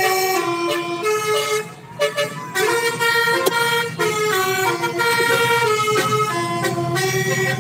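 Telolet basuri multi-tone bus horn playing a melody in quick stepped notes, with a brief break about two seconds in. A low steady hum runs underneath.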